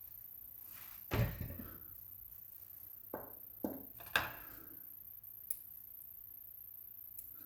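A few knocks and metallic clicks from an Evva 3KS lock and picking tools being handled, the loudest thunk about a second in, then lighter clicks.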